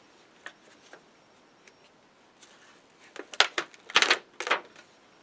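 Plastic backing liner crinkling as it is peeled off an adhesive pediatric defibrillator pad: a few faint clicks, then about a second in from the halfway point a run of short crackly rustles, loudest about three and four seconds in.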